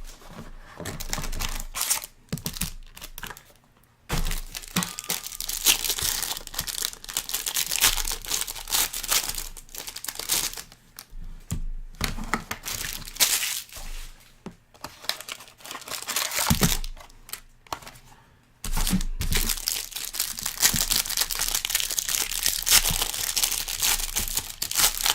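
Plastic wrapping on a box of trading cards being torn open and crumpled by hand: bursts of crackling and crinkling with short pauses between them.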